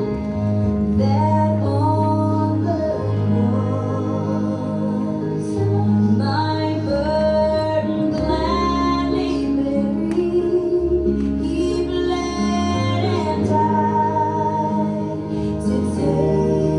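A hymn played as music: a woman singing a slow melody over sustained instrumental accompaniment with held bass notes.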